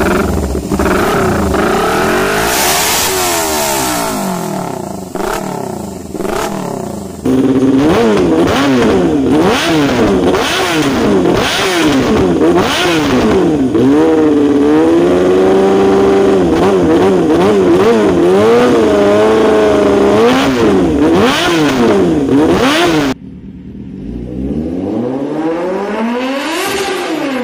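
Sport motorcycles with SC Project aftermarket exhausts being revved in three short clips, with sharp rising and falling blips. First comes a red faired sport bike, then a white Yamaha supersport that is held at higher revs for several seconds in the middle. Last comes a Kawasaki Z800's inline-four, with one rising rev near the end.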